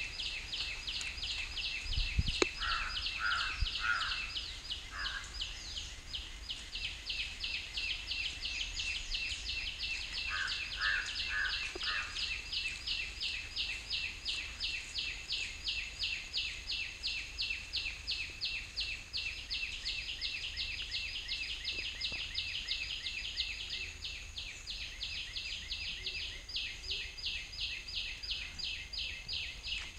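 Insects chirping in a fast, even, high-pitched pulse that runs on without a break. A few short lower calls come in about three seconds and eleven seconds in.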